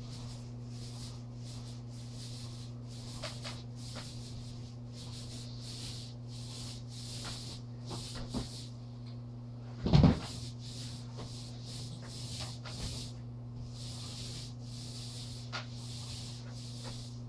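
Paintbrush strokes on a wall, a soft swish repeated every second or so, over a steady low hum. A single loud knock about ten seconds in, with a few small clicks.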